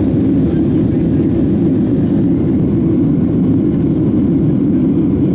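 Boeing 737-700 heard from inside the cabin: a steady, even low rumble of its CFM56-7B jet engines and the air rushing past the fuselage.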